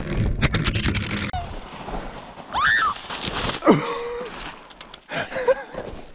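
A few clattering knocks as a flung GoPro camera on its pole lands in brush, then a person's wordless cries and groans that glide up and down in pitch, heard from some distance.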